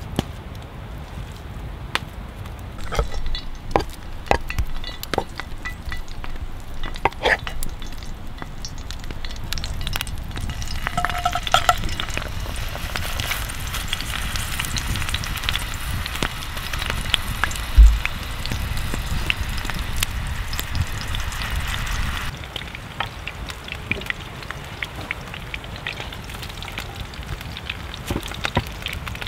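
Minced goose patty sizzling in a cast iron skillet over an open wood fire. Scattered clicks and taps come first as the knife works the raw meat. The sizzle comes up loud about a third of the way in, with one heavy thump a little past the middle, then drops back to a fainter sizzle with crackles.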